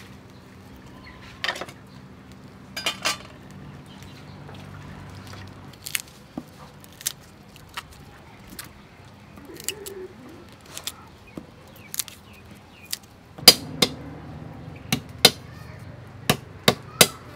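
Knife chopping garlic on a round wooden chopping board: a run of sharp chops, about two a second, in the last few seconds. Before that, scattered light taps and clicks while the garlic is handled and peeled on the board.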